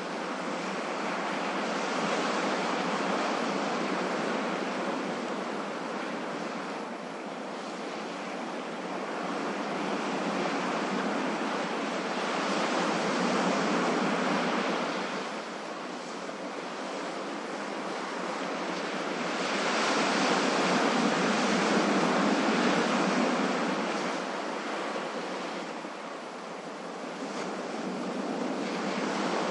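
Ocean waves breaking and washing ashore in a continuous rush of surf that swells and falls back, with a crest every six to eight seconds.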